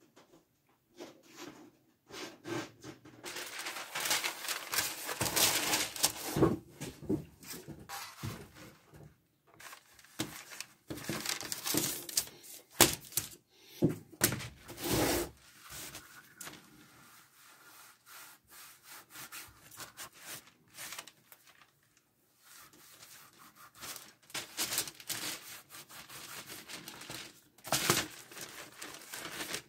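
Hand-handling sounds of leather pieces and paper on a wooden workbench: irregular rubbing and rustling with scattered light knocks, coming in a few busier stretches with quieter gaps between.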